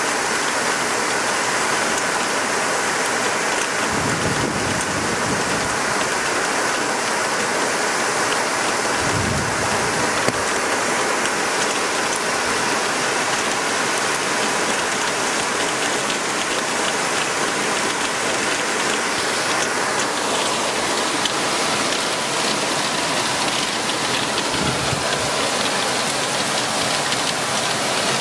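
Torrential rain mixed with hail pelting roofs, parked cars and flooded pavement: a dense, steady hiss of drops with fine ticking. A short low rumble comes through three times.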